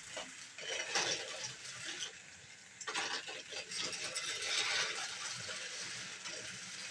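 Motorized Thomas & Friends toy trains and their plastic track: a small gear motor whirring, with uneven plastic clicking and clattering in two stretches.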